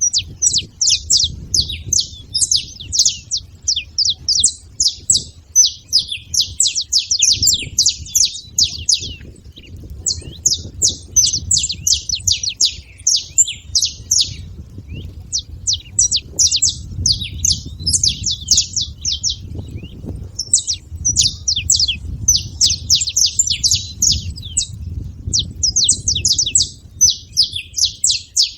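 Several saffron finches chirping in quick, dense, overlapping runs, broken by a few short pauses, over a low rumble.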